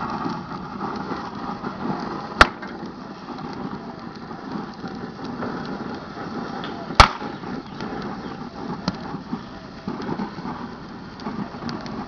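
A microwave oven being destroyed, burning inside and crackling steadily, with two sharp, loud pops about four and a half seconds apart.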